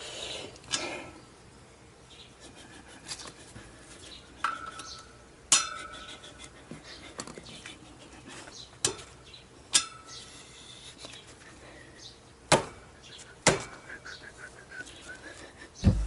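Steel tyre levers prying a new tyre's bead over the chrome rim of a spoked motorcycle front wheel: scattered sharp metallic clicks and clinks, about five of them loud, with a few brief squeaks.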